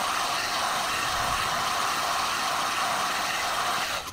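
Handheld hot air gun blowing steadily, its fan and airflow making an even rushing noise that cuts off abruptly about four seconds in as it is switched off.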